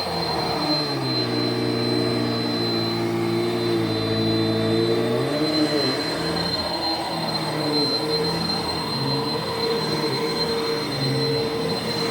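Vacuum cleaner running steadily with a high whine. About a second in, its motor note drops lower for around four seconds, then comes back up.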